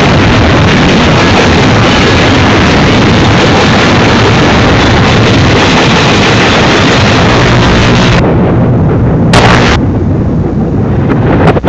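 Union Pacific double-stack container train passing close by: a loud, steady din of steel wheels rolling on the rails. About eight seconds in it turns duller for a few seconds, broken by a short bright burst.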